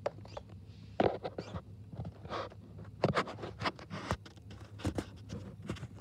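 A bird pecking and scratching on a window feeder's tray, close to the microphone: irregular sharp taps and clicks of its beak and feet on the feeder, with short rustles of sunflower seeds. The loudest taps come about one and three seconds in.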